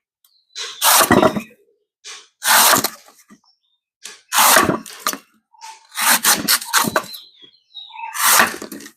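A knife chopping and slicing into the husk of a king coconut: a series of cracking, splitting strokes in uneven bursts, several in quick succession about two-thirds of the way through.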